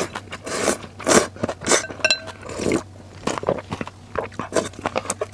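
A person slurping noodles of hot and sour noodle soup, several long drawn-in slurps in the first three seconds. Then mouth-close chewing with quick wet clicks.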